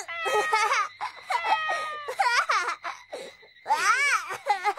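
A young boy and a young woman in an anime soundtrack, laughing and giggling together in several short, high-pitched laughs.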